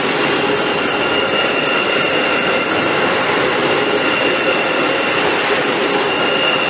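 High-speed electric train moving past a station platform: a steady rush of wheel and running noise with a thin, steady high whine over it.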